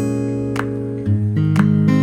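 Background music: acoustic guitar strummed and picked, with a chord change about a second in.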